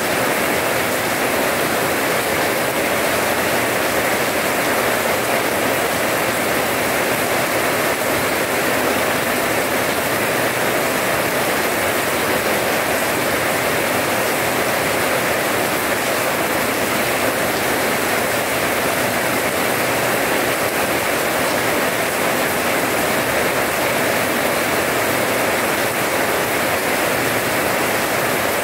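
Steady rain falling on wet paving, an even hiss of drops splashing on the hard ground.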